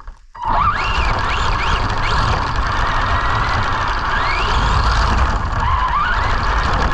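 Arrma Senton RC truck's electric motor and drivetrain whining, rising in pitch again and again as the truck accelerates, over a loud rumble of the truck running through snow. It starts suddenly about half a second in.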